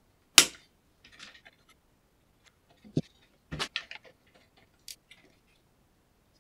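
Sharp clicks and light rustling as ribbon cables are handled and tucked into place inside an opened video scaler's case. The loudest click comes just under half a second in, with more about 3 and 4 seconds in.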